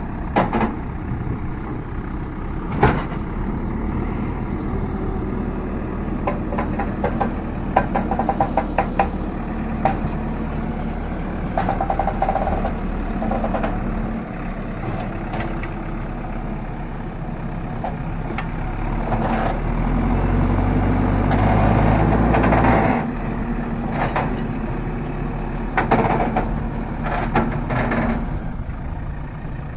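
JCB backhoe loader's diesel engine running under load as it tows a truck, swelling louder about two-thirds of the way through and then easing off. Scattered metallic knocks and clanks come through, with clusters about a third of the way in and near the end.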